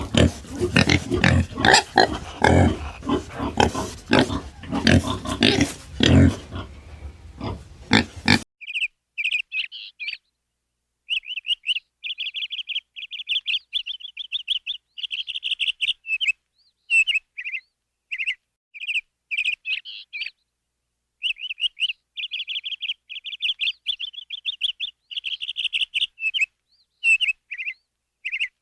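Pigs grunting for the first eight seconds or so, then an abrupt change to small birds chirping in quick runs of high notes broken by short silences.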